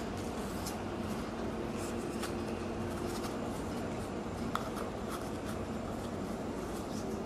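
Strips of young coconut palm leaf rustling and rubbing against each other as they are pulled and tucked through a ketupat weave: short, light crackles over a steady background hiss, with one small sharp click a little after halfway.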